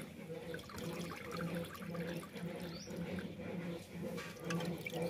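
Hands sloshing and squeezing raw chicken pieces in a steel pot of water, with splashes and drips as the pieces are lifted out onto a steel plate. A steady low hum runs underneath.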